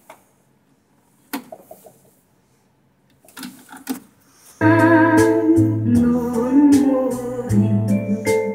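Clicks of the cassette deck's transport buttons and mechanism being operated, then about four and a half seconds in, music starts playing back from the cassette, with steady bass notes under a melody.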